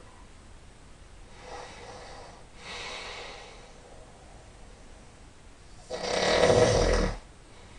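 A sleeping man snoring: two softer breaths, then about six seconds in one loud snore lasting just over a second.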